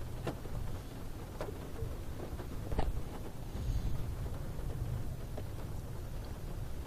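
Steady low rumble inside a car cabin, with a few faint clicks.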